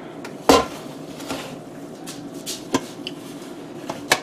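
Enamelled roasting pan set down on a granite countertop with a clunk about half a second in, then a few lighter clinks of pan and lid, the sharpest near the end as the lid is taken hold of.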